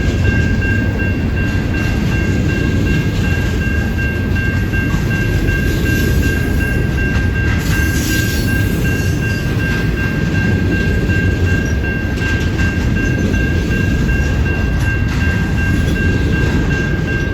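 Freight cars of a CN intermodal train rolling past, a dense low rumble with a steady high-pitched tone held over it throughout.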